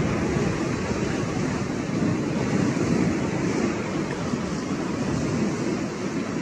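Steady rushing of wind on the microphone over choppy open water, with waves breaking and lapping.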